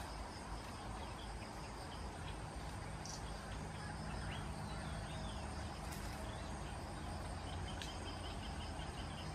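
Forest ambience: a steady high insect drone over a low rumble, with faint scattered bird chirps and a quick run of ticks near the end.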